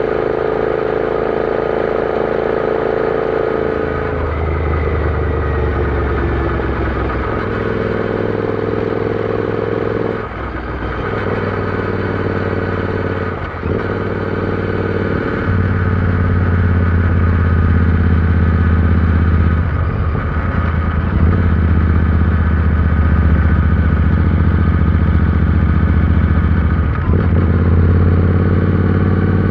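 Royal Enfield Interceptor 650's parallel-twin engine running under way. The sound dips briefly about 10 and 13 seconds in, as at gear changes, then runs louder and steadier from about 15 seconds.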